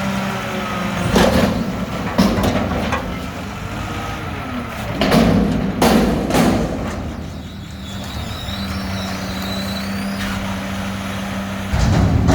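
Mack garbage truck with a McNeilus front-loader body, its diesel engine running steadily, broken by several loud, sudden bursts of noise.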